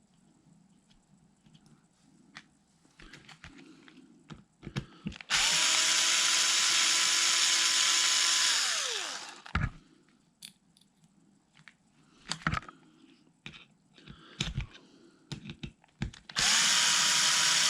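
Small cordless electric screwdriver spinning out small screws: one steady whining run of about three seconds that winds down with falling pitch, then another run starting near the end. Light clicks and knocks come in between.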